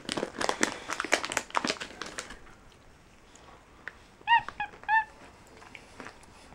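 Packaging crinkling and rustling for the first two seconds or so, then a black-capped capuchin monkey gives three short, high-pitched calls a little over four seconds in.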